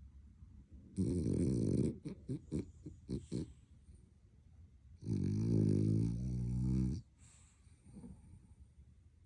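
French bulldog puppy snoring in its sleep: a loud snore about a second in, then a quick run of short snorts, and a longer snore in the middle.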